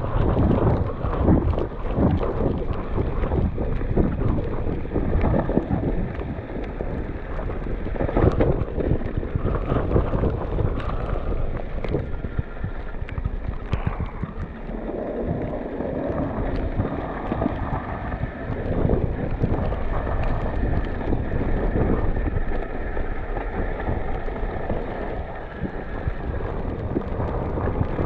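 Wind buffeting an action camera's microphone during an e-bike ride through snow: a continuous gusting rumble, with the rolling noise of the bike mixed in.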